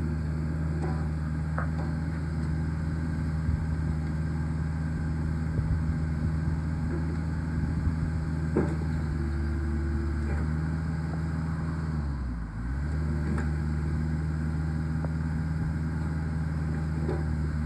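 Hanix H55DR mini excavator's diesel engine running steadily while the boom and bucket are worked, with a few short knocks. About twelve seconds in the engine note dips briefly in pitch and then recovers.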